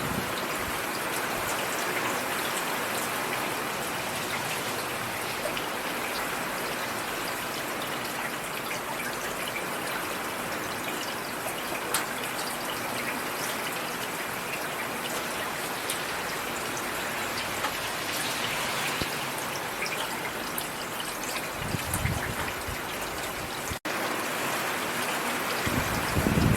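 Steady rain falling, with individual drops ticking sharply now and then. The sound cuts out for an instant about three-quarters of the way through.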